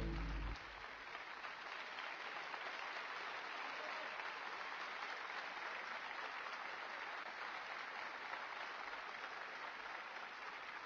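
Theatre audience applauding steadily. A final musical chord cuts off about half a second in.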